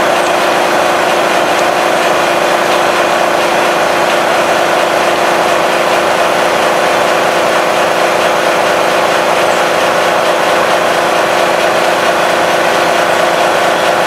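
Makita MAC2400 2.5 hp electric air compressor running steadily as it fills its tank, with a Honda EU3000iS inverter generator running under the load.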